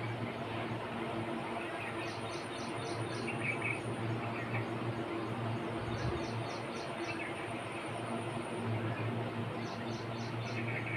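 Birds outdoors, one repeating a quick run of four or five high chirps every few seconds, over a thin steady insect buzz and a low hum.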